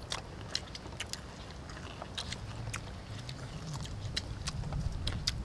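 Several people biting and chewing fried chicken wings: irregular wet smacks and crunchy clicks. A low rumble builds up over the second half.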